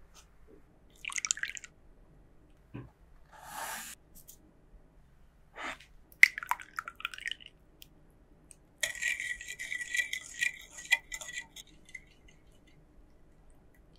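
Liquid ingredients, beaten egg and melted butter, poured into a glass mixing bowl in a few short splashes and drips. Then a metal balloon whisk beats the wet mixture, clinking and scraping rapidly against the glass for about three seconds near the end.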